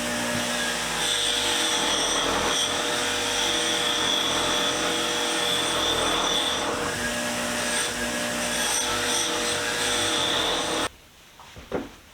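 Power tool running steadily as rusty wrenches are worked against it for de-rusting, then cutting off suddenly near the end. A few light metal clinks follow.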